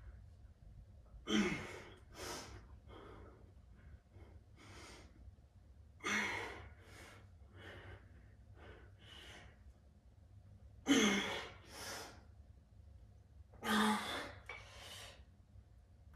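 A man breathing hard from the effort of bicep training: short, forceful breaths every second or few, some voiced like a sigh. The loudest come about a second in, at six, at eleven and near fourteen seconds.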